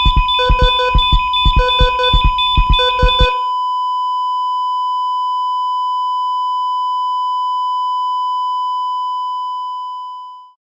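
Heart monitor sound effect: rhythmic beeping over a pulsing beat for about three seconds, then a single unbroken flatline tone that fades out near the end, the sign that the monitored heart has stopped.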